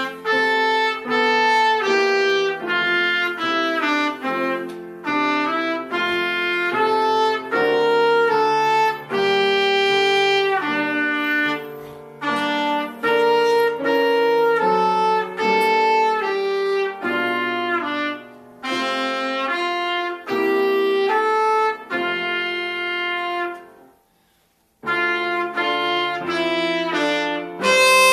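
Trumpet playing a melody of separate held notes over grand piano accompaniment. The music breaks off for about a second near the end, then the trumpet comes back in.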